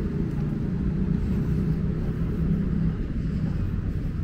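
A large engine running at a steady pace, a low humming drone that holds level throughout.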